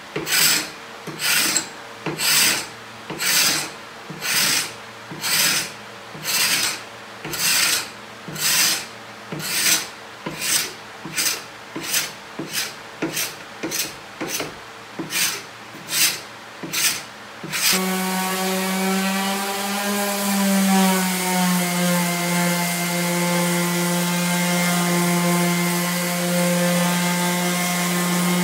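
Hand paint scraper pulled in rasping strokes across an oak desktop, stripping old varnish, about one stroke a second and quickening. About 18 seconds in, an electric random orbital sander starts and runs steadily on the wood, its hum dipping briefly in pitch as it settles onto the surface.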